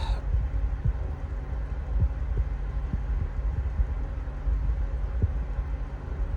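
A steady low rumble with a few faint, irregular soft knocks.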